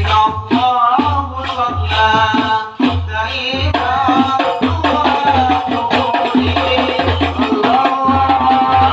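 A rebana frame-drum ensemble playing a steady rhythm, with a deep bass stroke about once a second and lighter slaps between, under a man singing a devotional melody into a microphone.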